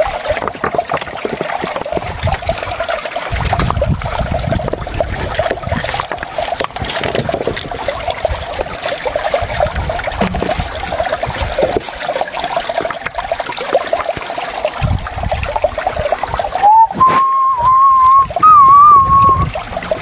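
Shallow stream water trickling among stones, with knocks and scrapes as rocks are lifted and moved by hand. Near the end a loud, wavering whistle-like tone sounds for about three seconds.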